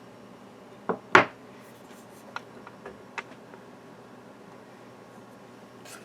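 Poured silver bars being handled: two sharp knocks close together about a second in, then a few light taps and clicks.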